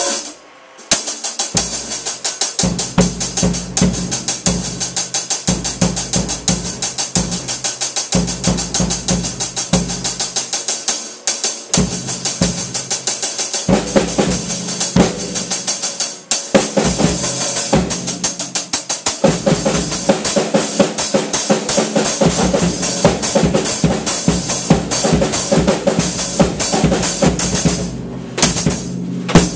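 Drum kit played hard and fast with sticks: a steady run of cymbal strokes over snare and bass drum hits. The playing starts about a second in, with a few short breaks in the middle and one near the end.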